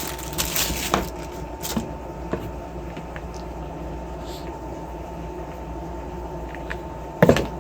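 Handling noise as a light plastic soldering station is picked up and moved about: scattered clicks and rustles early, then a single sharp knock about seven seconds in. Under it runs a steady low background hum with a faint constant whine.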